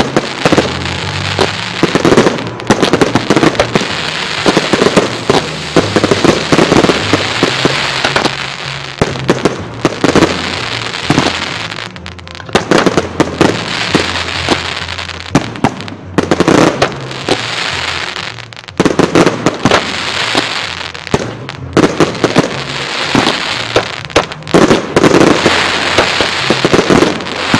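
Fireworks display: rapid salvos of aerial shells bursting, with crackling stars, coming in loud waves separated by brief lulls.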